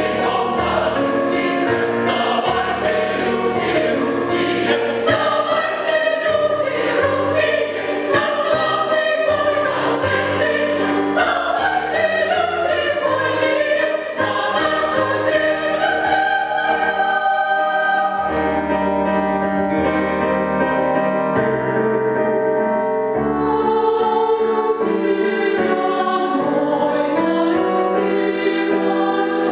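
Mixed choir of women's and men's voices singing together in harmony, with no pauses.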